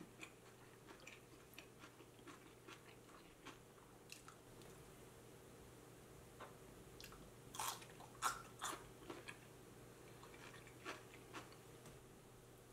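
Quiet eating sounds: soft crunches and small clicks of chopsticks and food, with a few sharper crunches about seven to nine seconds in.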